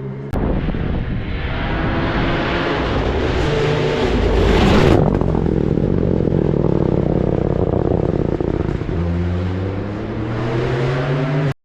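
Rally car passing at speed on a gravel-free mountain stage road, its engine growing loud to a peak about five seconds in and then fading; a steady engine note takes over near the end before the sound cuts off suddenly.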